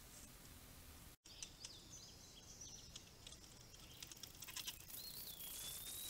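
Faint hiss that cuts out about a second in, then songbirds chirping and calling, with a clear whistled note held for about a second near the end.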